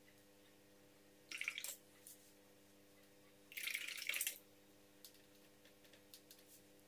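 Paintbrush swished in a jar of rinse water, two short splashy swishes, the second longer, followed by a few faint ticks.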